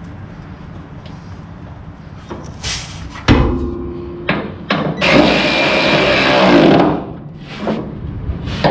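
Garage work on metal: a sharp clank that rings briefly about three seconds in, a few knocks, then a power tool running for about two seconds before stopping, followed by more knocks near the end.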